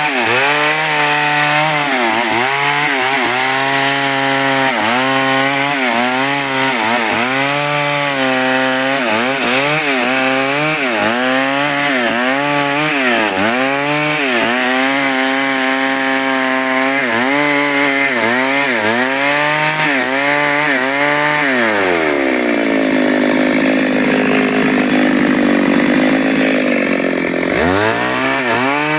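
Chainsaw cutting wood: the two-stroke engine runs at high revs, its pitch dipping and recovering about once a second as the chain bogs in the cut. About three quarters of the way through, the engine note drops to a lower steady pitch for several seconds, then revs back up near the end.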